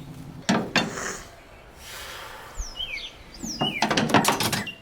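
Steel pipes clanking and rattling as they are handled in a metal scrap pile: two knocks about half a second in, then a quick clatter near the end, with a bird chirping in between.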